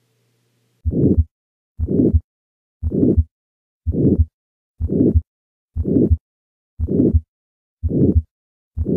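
Stethoscope recording of a heart through the diaphragm at the second right intercostal space, beating about once a second. Each beat carries a harsh crescendo-decrescendo systolic murmur, the murmur of aortic stenosis.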